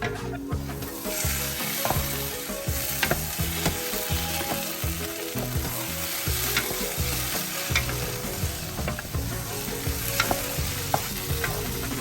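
Egusi (ground melon seed) frying and sizzling in a pot while being stirred with a spoon, a steady sizzle with scattered sharp clicks and scrapes of the spoon against the pot.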